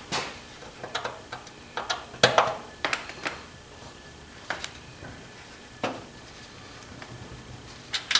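Scattered sharp clicks and knocks of a satellite receiver's plastic faceplate and case being handled and pried at, about eight or nine separate knocks, the loudest a little over two seconds in.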